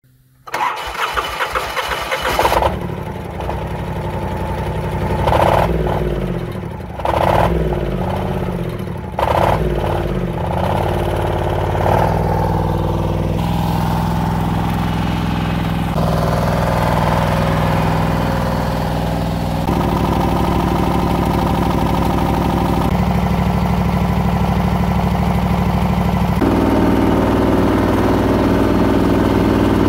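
The 22 HP Chinese V-twin diesel engine of a converted Kubota ride-on mower starts about half a second in, revs up and down several times, then runs at a steady speed. Its note changes abruptly a few times.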